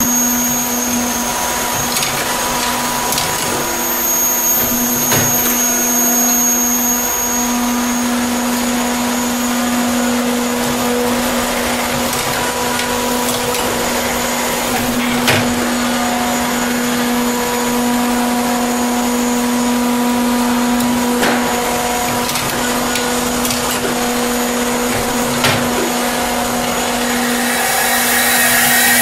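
Hempel CP-500 automatic woodturning and sanding lathe running: a steady motor hum with a few sharp clicks from its mechanism. Near the end the noise grows louder and hissier.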